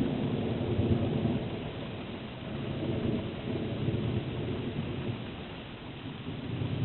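Rolling thunder rumbling low and slowly dying away, swelling again briefly a couple of times, over the steady hiss of rain.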